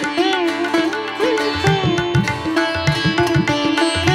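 Instrumental background music: a string melody with sliding, bending notes over a steady drone, with low drum strokes coming in about a second and a half in.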